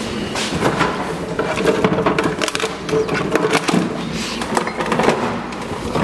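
A refrigerator door is pulled open and the bottles and jars on its door shelf are handled, giving an irregular run of knocks and clinks.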